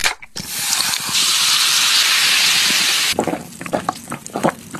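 Close-miked eating of crispy Korean fried chicken: a loud, dense crackling hiss for about three seconds that stops abruptly, then scattered crunchy chewing clicks.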